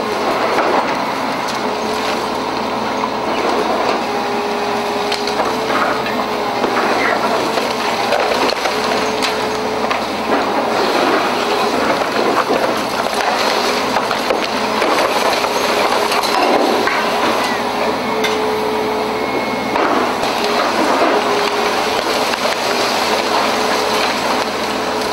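Demolition excavator with hydraulic crusher jaws working on a concrete block of flats: the machine runs steadily with a whine that comes and goes, over the cracking and falling of broken concrete.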